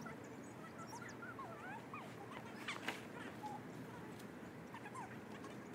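Short animal calls, thin chirps that slide up and down in pitch, scattered through a steady low background noise, with one sharp click about three seconds in.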